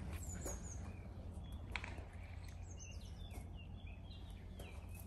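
Small songbirds chirping, with short falling high calls near the start and again in the middle, over a steady low outdoor rumble. A single light click comes just under two seconds in.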